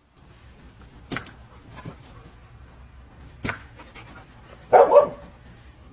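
A dog gives a short bark about five seconds in, after a couple of faint clicks.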